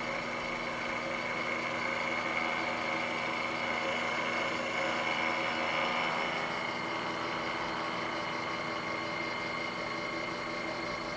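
A milling machine cutting the edge of a 1/2 inch 6061 aluminium plate held in the vise, a steady run with a clear high ringing tone. The ring is a slight vibration, or chatter, of the plate where it sticks out a few inches from the vise, although the finish comes out good.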